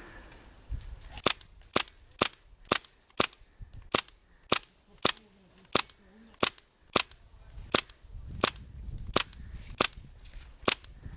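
Tippmann M4 HPA airsoft rifle firing single shots in a steady string, about two sharp pops a second, some nineteen in all, beginning about a second in.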